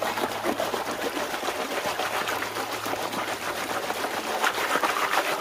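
Gold pan full of creek gravel shaken under water: a rapid, continuous rattle of stones against the pan, with water sloshing and splashing.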